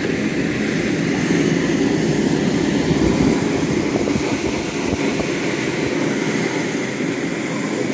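Blower fan of a hands-on airflow exhibit running, a steady loud rush of air out through a metal grille.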